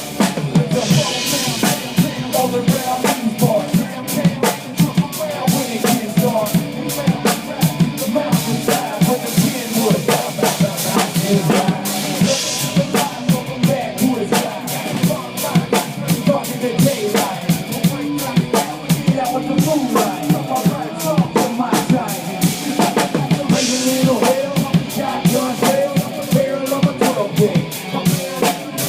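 Loud live concert music with a drum kit keeping a steady, dense beat.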